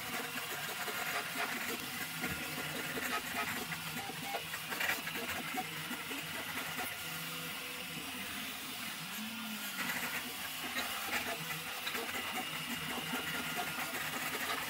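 3D printer running, its stepper motors giving short tones that keep changing pitch over a steady hiss.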